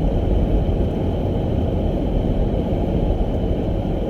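A car driving steadily, heard from inside the cabin: an even low rumble of tyres, engine and wind.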